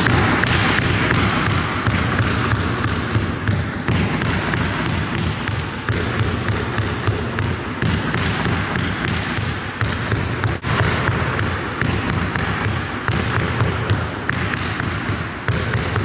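Basketballs being dribbled on a gym floor, many bounces overlapping into a dense, continuous patter.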